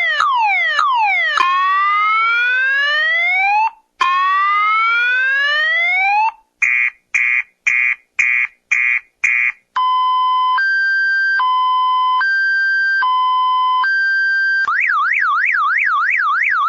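Electronic police siren cycling through its tones: quick falling sweeps, two long rising wails, a string of short rapid beeps, a slow two-tone hi-lo alternation, then a fast warbling yelp from about fifteen seconds in.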